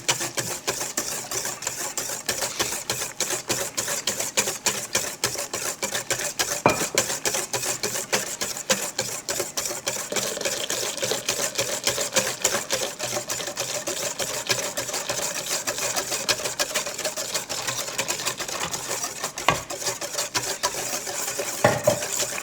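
Electric mixer running steadily, beating the egg yolk, sugar and liquor mixture for eggnog, with fast, even ticking throughout and a few louder knocks.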